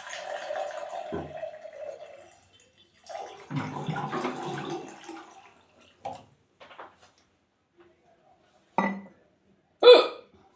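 Water poured into a glass in two goes, then two short, sharp hiccups near the end, the second one louder.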